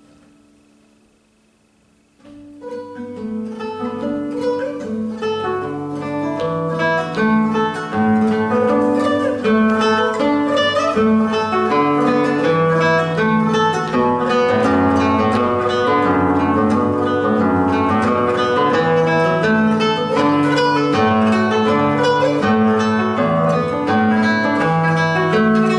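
Solo nylon-string classical guitar. The last notes ring away into a short pause, then a new passage begins about two seconds in, quiet at first and building within a few seconds into a fast, continuous stream of plucked notes.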